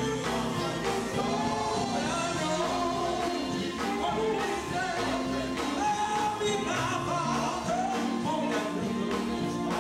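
Live gospel group music: male singers singing into handheld microphones over electric guitars and drums, played through the church PA.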